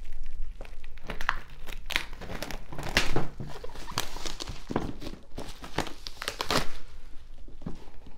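White cardboard product box being opened by hand: the packaging crinkling and tearing as it is picked open, and the boxes being handled, with irregular rustles and light knocks.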